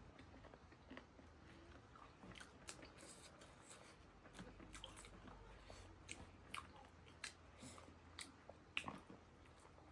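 A person chewing and eating, with faint irregular mouth clicks and smacks; one sharper click comes near the end.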